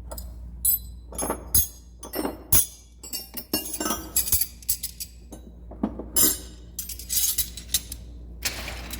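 Steel wrenches clinking and clattering against each other as they are handled, a string of irregular sharp metallic clinks.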